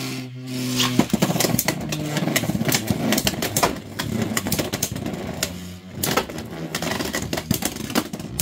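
Beyblade X spinning tops in a clear plastic stadium: a steady spinning hum in the first second, then rapid clicking and rattling as the tops clash and scrape around the bowl, dipping briefly about six seconds in.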